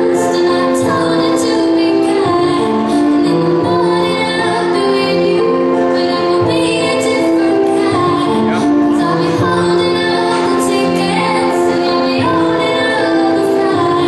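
Song playing for a dance performance: a woman singing over instrumental accompaniment with held notes and a light regular beat.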